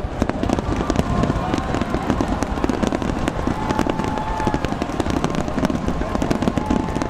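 Fireworks grand finale: a continuous barrage of shell bursts and crackle, dozens of sharp bangs overlapping on a steady heavy rumble with no gaps.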